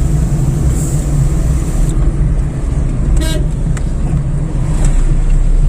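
Car on the move: a steady, loud low rumble of engine and road noise, with a brief vehicle horn toot about three seconds in.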